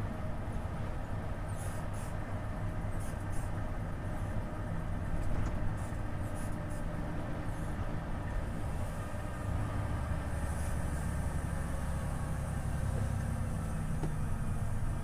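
Volvo FH 500 truck's 13-litre six-cylinder diesel engine running under way, a steady low drone with road noise. The drone grows a little stronger about two thirds of the way through.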